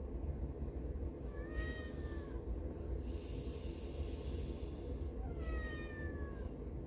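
Cat meowing twice, each meow drawn out for about a second and falling in pitch, over a steady low rumble.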